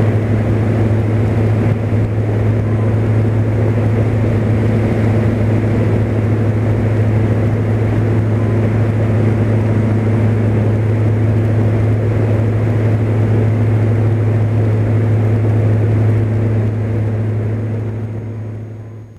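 Cessna 172 single piston engine and propeller running steadily at climb power just after takeoff. The sound fades out over the last couple of seconds.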